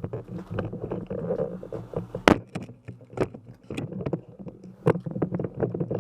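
Irregular clicks and knocks over a low rumbling rustle, with a few louder sharp cracks about two, three and five seconds in: the movement and gear noise of a player on the move during an airsoft game.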